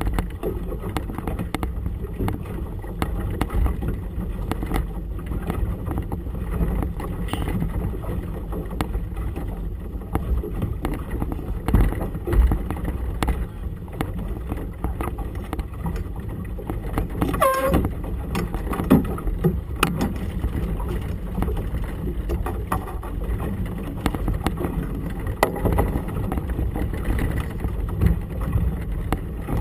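Gusty wind buffeting the microphone and choppy harbour water slapping against a small boat's hull, giving a low, uneven rumble.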